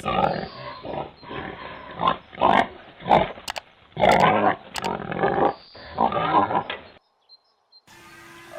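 Pigs grunting in a run of short, loud calls that cut off about seven seconds in.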